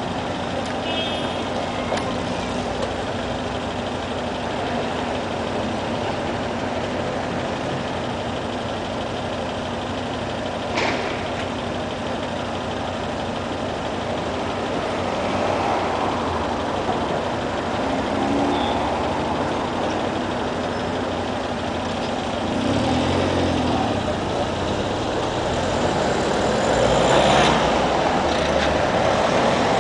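City street traffic: car engines and tyres passing on the road, with a short sharp click about eleven seconds in and a vehicle growing louder as it passes close near the end.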